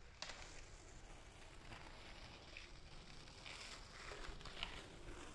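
Faint outdoor background noise with a few soft clicks, growing slightly louder near the end.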